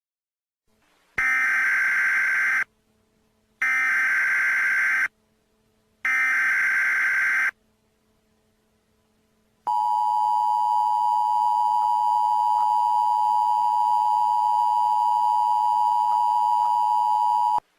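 Emergency Alert System header: three short, identical buzzing data bursts. After a pause they are followed by the steady two-tone EAS attention signal, held for about eight seconds. Together they announce an incoming emergency alert.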